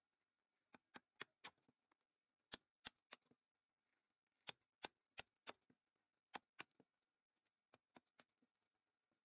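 Steel chisel struck with a mallet, chopping a square mortise into a wooden bed leg: sharp taps in quick groups of three to five, with short pauses between the groups.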